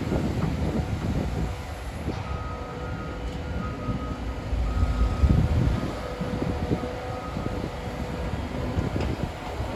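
CAT 325 hydraulic excavator working as it digs: its diesel engine and hydraulics running under load in a rough, uneven rumble that swells about five seconds in.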